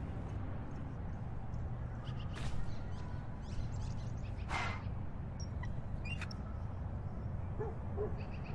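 Outdoor ambience: scattered short bird chirps and calls over a steady low rumble, with one louder call about halfway through.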